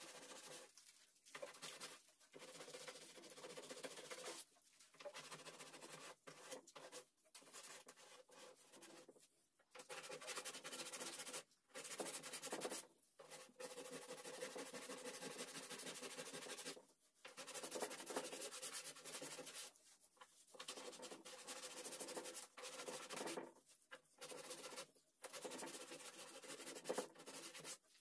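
Faint rubbing of a polishing pad worked by hand over carved wood, applying polish. The rubbing comes in stretches of one to several seconds with short pauses between.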